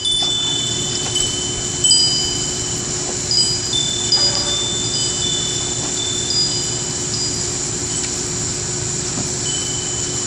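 Wind chimes ringing in the wind, several high tones struck at different moments and each ringing on for a second or more, over a steady background rush.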